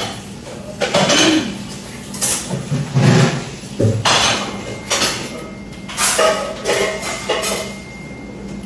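Small fork scraping and clinking on a plastic plate as a toddler eats, in a run of short, irregular scrapes.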